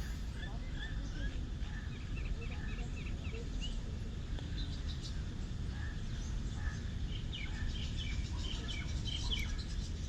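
Small birds chirping, many short calls scattered throughout, over a steady low background rumble.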